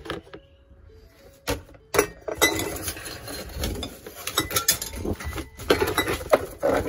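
Glass jars, plastic bottles and plastic containers clinking and knocking together as hands rummage through a dumpster full of discarded household items. The knocks are irregular: a couple of sharp ones about one and a half to two seconds in, then many closely spaced ones.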